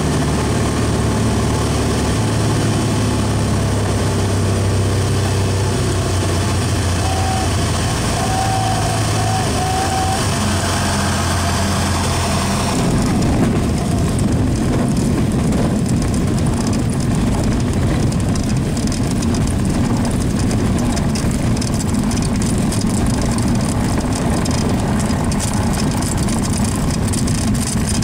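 Cessna 172's engine and propeller droning steadily on the landing approach, heard from inside the cabin. About halfway through the wheels touch down and the sound turns to a coarse rumble and rattle of the plane rolling over the rough grass strip, the engine throttled back to idle.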